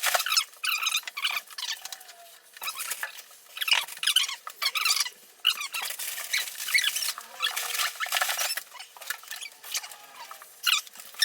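Irregular scratching, scraping and creaking from demolition work on wood and debris, in short uneven strokes with squeaky crackles.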